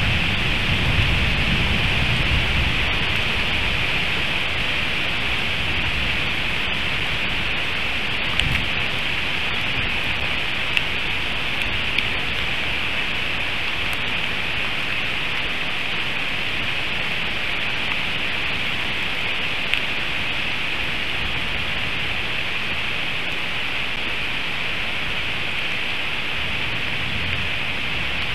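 Heavy rain falling steadily, a dense even hiss, with a low thunder rumble fading away over the first few seconds and a few sharp drip ticks.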